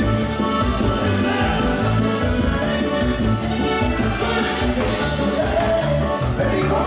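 Loud Latin dance music playing with a steady, pulsing bass beat.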